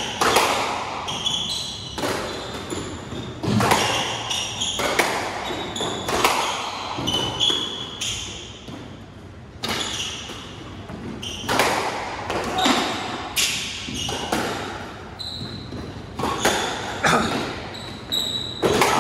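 A squash rally: the ball smacks off rackets and the court walls every second or so, each hit ringing briefly in the court. Short high squeaks of court shoes on the wooden floor come between the hits.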